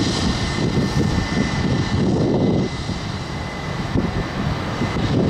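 Airbus A321-231 airliner's IAE V2500 turbofan engines running: a heavy, fluctuating low rumble with a steady high whine on top.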